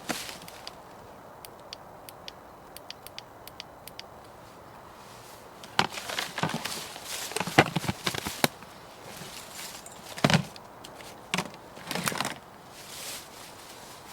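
Dry wood cracking and snapping in a series of sharp crunches, densest about six to eight seconds in, with a few more snaps after. Faint light ticks come before them.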